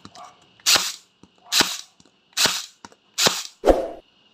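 Max TG-Z cordless stapler firing U-staples into cardboard: four sharp shots a little under a second apart, with a duller knock just after the last.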